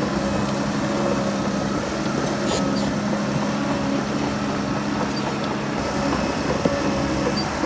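Heavy earthmoving machine's diesel engine running steadily at a constant speed, with one sharp click near the end.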